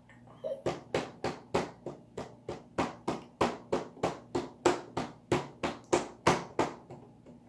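A baby's hands slapping a plastic high-chair tray over and over, about three slaps a second.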